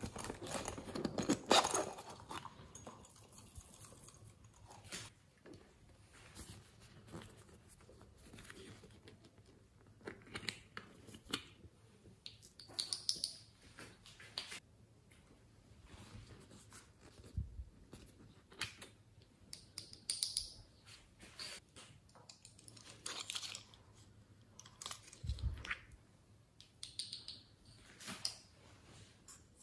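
Small handling sounds as glitter is shaken and poured from little containers onto a tray of beads and sequins: short hissing bursts with scattered clicks and taps of containers. A louder crunchy rustle comes about a second and a half in.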